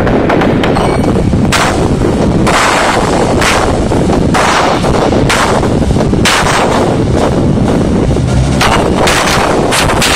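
Dance music played loud over a hall PA, so loud in the recording that it distorts, with a heavy beat hitting a little under once a second and quicker hits near the end.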